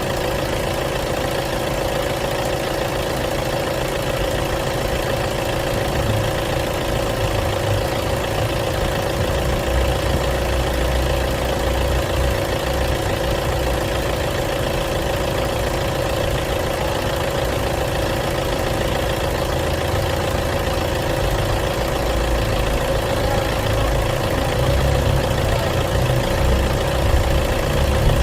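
Diesel car engine idling steadily, with no revving. Its low rumble grows a little louder near the end.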